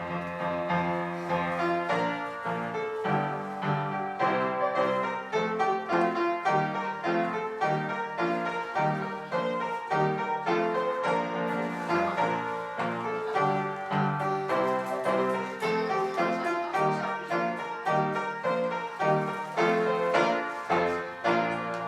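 Piano music playing, a steady run of notes over sustained bass notes.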